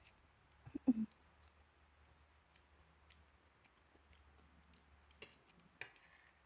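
People eating quietly: soft chewing and light clicks of spoons against plates, with two sharper clicks near the end.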